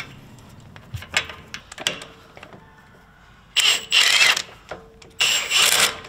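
Cordless impact wrench running the unit bearing bolts into the steering knuckle in two short runs, about a second each, snugging them in only loosely. Before that, a few light metal clicks.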